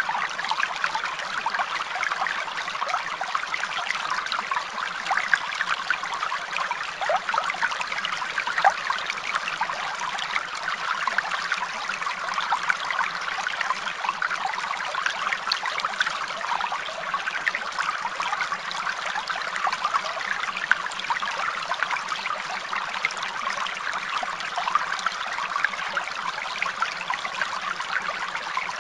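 Running water trickling steadily, a constant babble of small splashes.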